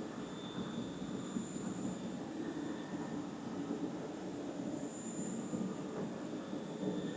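Steady low mechanical rumble, with faint high steady tones above it.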